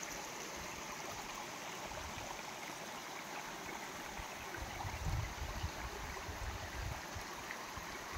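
Small mountain stream running over loose stones, a steady rushing hiss, with low rumbles coming in from about four and a half seconds in.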